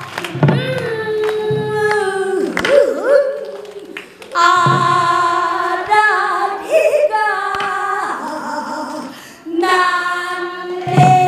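A woman singing pansori: long held notes with wide vibrato and bending, sliding pitch, in phrases broken by short breaths. A few sharp knocks sound behind the voice.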